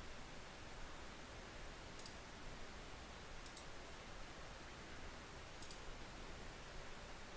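Computer mouse clicking faintly over a steady low hiss. There is a single click about two seconds in, a quick pair of clicks about a second and a half later, and one more click near six seconds.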